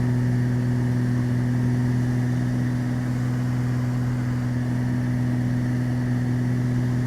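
Twin piston engines and propellers of a Beechcraft Baron droning steadily in cruise climb, heard inside the cockpit: an even low hum with constant pitch.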